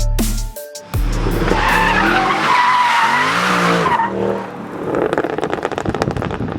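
Mercedes SLK320's tyres squealing with a wavering pitch for a couple of seconds while its M112 V6 engine revs. The engine then keeps running at high revs with a fast, even pulsing note. Backing music cuts out about a second in.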